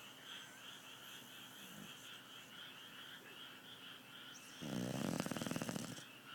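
A sleeping dog snoring: one loud, buzzing snore lasting over a second, starting about four and a half seconds in. Steady rhythmic chirping continues in the background.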